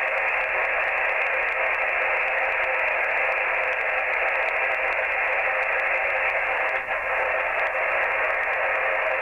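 Steady rushing static from a Yaesu FT-857D transceiver's speaker on the 80-metre band in lower sideband. It is band noise reading S7 to S8 on the S-meter, so heavy that the band is unusable for hearing other stations. It cuts off near the end as the radio is switched to another band.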